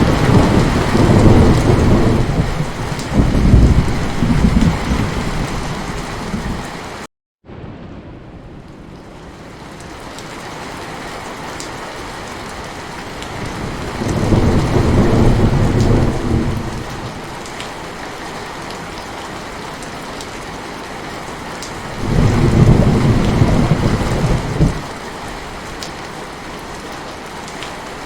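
Steady heavy rain with rolling thunder rumbling low three times: through the first seven seconds, again around the middle, and near the end. The first rumble cuts off abruptly with a split-second gap of silence.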